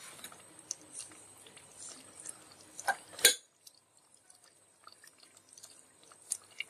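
Egg korma curry simmering in a pot, faint bubbling and spitting with scattered small clicks. About three seconds in come two sharp clicks less than half a second apart, the second one loud; after that the simmering goes fainter.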